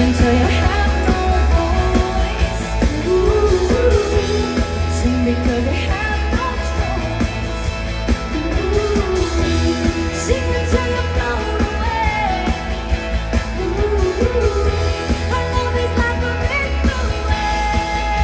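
Live pop band playing: a singer over a full band with a heavy, steady bass.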